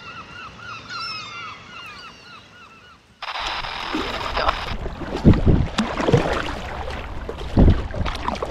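A bird gives a rapid run of short, repeated calls. The sound then cuts to water splashing and rushing around a sit-on kayak being paddled through choppy sea, with two heavier low thumps in the second half.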